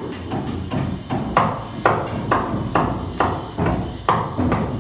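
Steady hammering, a little over two blows a second, heard inside the wooden hull of a boat under construction.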